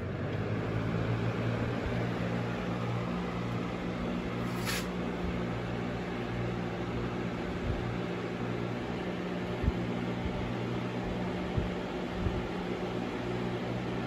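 Lasko Power Plus B20540 20-inch box fan running: a steady rush of air over a low motor hum, with a few short low thumps in the second half.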